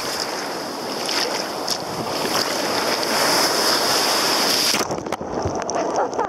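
Steady rush of sea waves and wind, with wind buffeting the microphone; the high hiss drops away suddenly about five seconds in.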